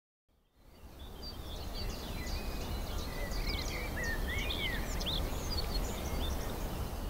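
Outdoor ambience fading in about half a second in: several songbirds chirping and whistling, with short gliding notes, over a steady low rumble.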